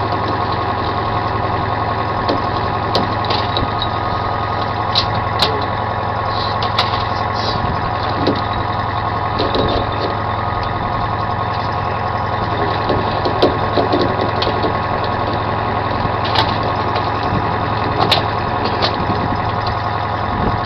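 Commercial salmon troller's engine running steadily at trolling speed, a constant low drone, with scattered light clicks and knocks from gear on deck.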